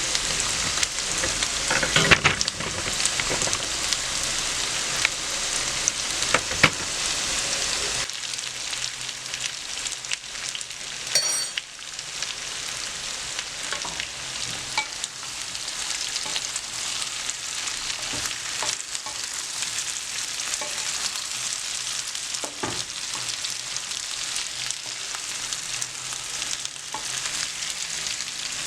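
Turmeric potatoes frying in oil in a pan, sizzling steadily, with the clicks and knocks of a utensil stirring them. The sizzle drops a little about eight seconds in.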